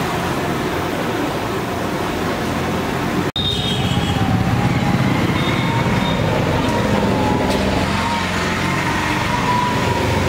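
Steady sizzle of jalebi batter frying in a kadai of hot oil, over constant street traffic noise, broken by a split-second gap about three seconds in.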